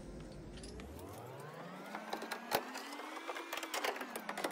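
Scattered metallic clicks and taps of a wrench working the brass nuts on a boiler's gas valve fittings, over a faint hum that slowly rises in pitch and then falls.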